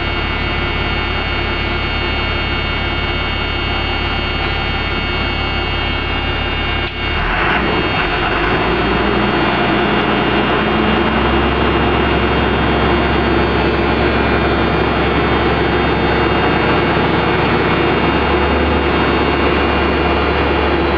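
School bus diesel engine running inside the cab, first at idle, then raised to a faster idle about seven seconds in and held there while the engine-driven compressor builds the air brake pressure back up.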